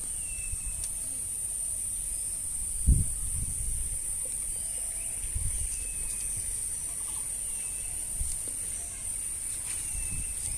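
Insects chirring in a steady high-pitched drone, with a short falling chirp repeating every couple of seconds and a dull thump about three seconds in.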